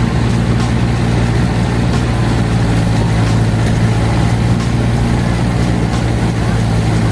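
Steady, loud drone of a small propeller plane's engine heard from inside the cabin, an even low hum that does not change.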